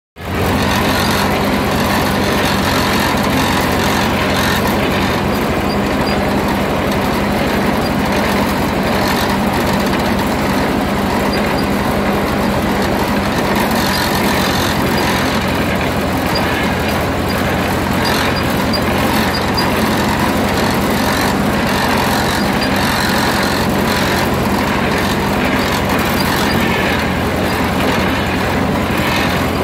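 1941 Ford tractor's four-cylinder flathead engine running steadily as the tractor is driven along a dirt trail, heard close up from the driver's seat.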